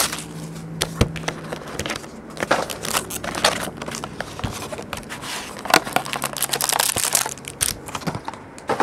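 Plastic shrink-wrap crinkling and crackling as it is torn off a sealed box of trading cards and crumpled, with scattered clicks and rustles of the cardboard box and wrapped card packs being handled.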